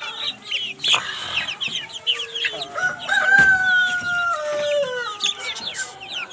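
Poultry calling: a rooster crows once, a long drawn-out call from about two and a half to five seconds in, over the continuous high cheeping of chicks.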